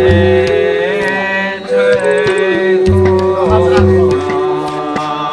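Devotional music: a sung, mantra-like melody with held, gliding notes over accompanying instruments and a steady drum beat.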